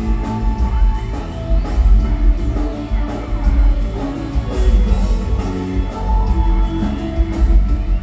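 Rock music with a singer, guitar and heavy deep bass, played loud over a home-theater speaker system driven by an Onkyo TX-NR838 receiver and heard in the room.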